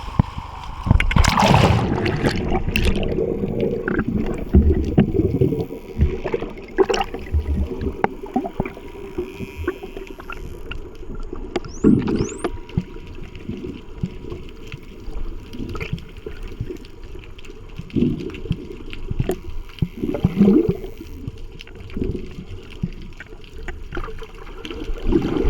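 Underwater sound of a scuba diver's entry: a loud churn of bubbles in the first few seconds, then the diver's regulator exhaust bubbles gurgling every few seconds. About halfway through come a couple of short rising whistles from the Indo-Pacific bottlenose dolphins swimming close by.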